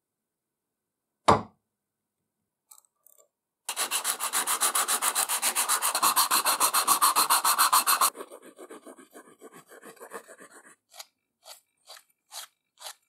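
A single sharp knock about a second in, as the arbor press seats a brass bushing. Then hand sanding of bare aluminium with 120-grit sandpaper: fast back-and-forth strokes, about seven a second, for about four seconds. After that comes lighter, finer rubbing, and near the end slower single strokes with a finer abrasive sheet.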